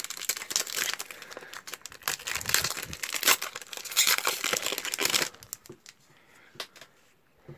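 Foil wrapper of a Cardfight!! Vanguard trading-card booster pack being torn open and crinkled by hand, a dense rustle that stops about five seconds in, followed by a few faint clicks.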